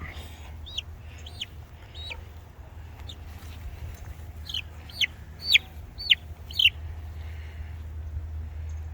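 Chicken giving short, high-pitched calls that fall in pitch: a few faint ones, then five louder ones in quick succession about halfway through. A steady low hum runs underneath.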